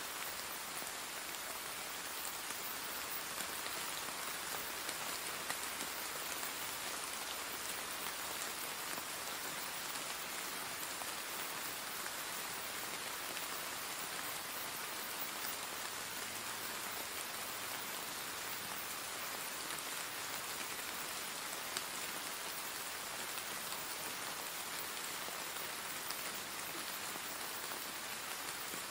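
Steady rain falling: an even hiss with scattered louder drops.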